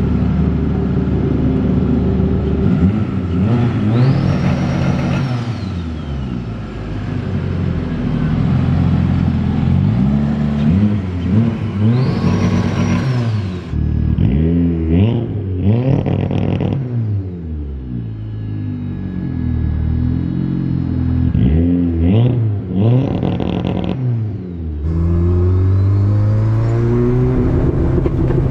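A turbocharged 1.5-litre Honda four-cylinder, swapped into a Honda Brio, revved again and again, its pitch climbing and falling with each rev. A hiss rises over two of the revs, and near the end the engine pulls under load, its pitch climbing steadily.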